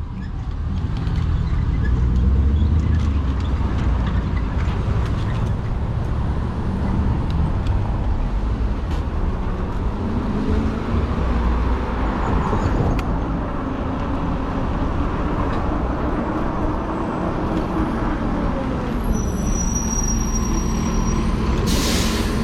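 Steady wind and road noise while riding a fat-tire e-bike along a road, with motor traffic passing; a vehicle's sound swells and fades about ten to thirteen seconds in. A short hiss comes near the end.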